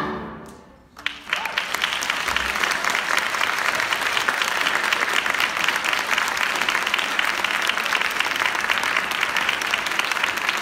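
A choir's last chord fades away, and about a second in an audience breaks into steady applause that keeps going.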